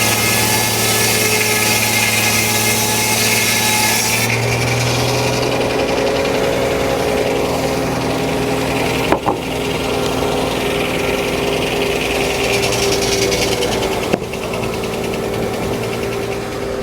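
Circular blade of a Frick No. 1 sawmill sawing through a log, the cut ending sharply about four seconds in; after that the blade spins free over the steady hum of the mill's drive. A sharp knock comes a little after nine seconds and another near fourteen.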